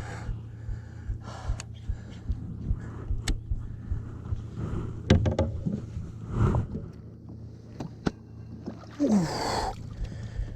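Irregular knocks and thumps against a kayak as a freshly landed muskie is handled aboard, with the angler's heavy gasping breaths and a short falling groan about nine seconds in.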